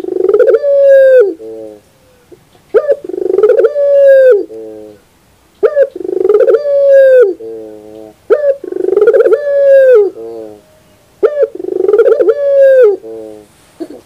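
Puter pelung, a Barbary dove kept for its long coo, cooing five times about three seconds apart. Each coo is a short opening note running into a long drawn-out note that drops at the end, followed by a softer trailing note.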